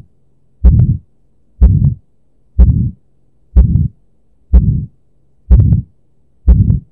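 Stethoscope recording of the heart sounds in aortic stenosis, with a beat about once a second. Each beat has a murmur filling the gap between the first and second heart sounds: the mid-systolic ejection murmur made by blood forced through the narrowed aortic valve.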